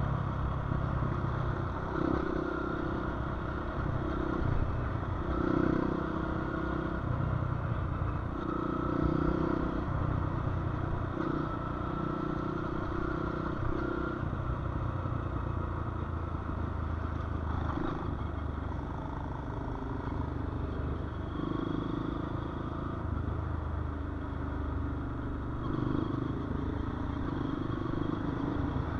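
Motorcycle engine running on the move, revs rising and falling as the rider goes through the gears.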